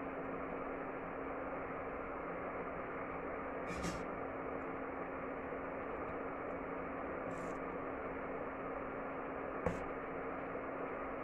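Steady hiss with a low hum. Over it come three faint, brief knocks of a steel ladle against the pan as the sardine curry is stirred.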